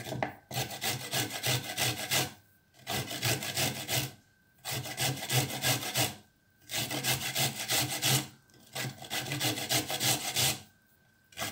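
A carrot being grated by hand on a kitchen grater: rapid back-and-forth scraping strokes in five runs of a second or two, with short pauses between them.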